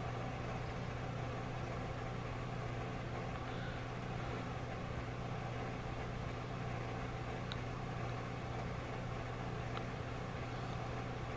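Steady low hum over a faint even hiss, with two small ticks in the second half: room tone.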